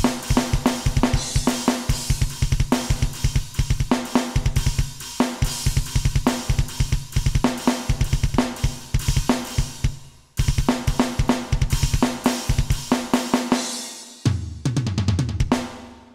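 Alesis Nitro Mesh electronic drum kit triggering custom metal drum samples: rapid kick drum strokes under snare, hi-hat and cymbals. The playing breaks off briefly about ten seconds in, and near the end it stops on a low tone that falls away.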